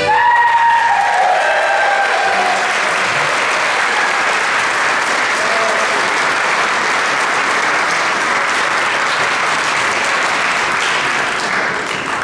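Audience applauding steadily at the end of a dance performance, the clapping thinning out at the very end.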